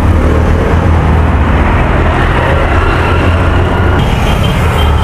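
Steady street traffic noise with a low engine rumble.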